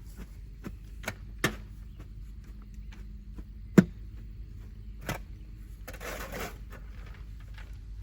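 Scattered knocks and clicks over a low steady hum, with one sharp, loud knock about four seconds in and a short rustling burst about six seconds in.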